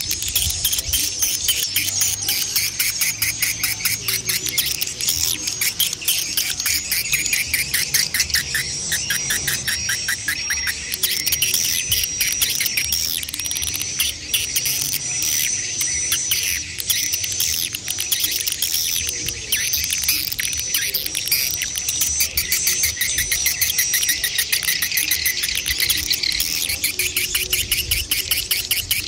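Swiftlets calling: a dense, unbroken twittering of rapid chirps with a high thin trill above it. These are the mixed calls of adult birds and chicks.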